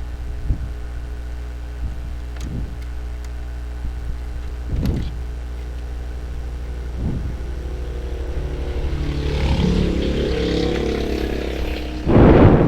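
A few separate light knocks and clicks of the Epson L3210 printer's plastic housing and scanner unit being handled and fitted back on, over a steady low hum. In the second half a louder rushing sound with a faint steady tone swells and fades, and a loud broad knock or rustle comes near the end.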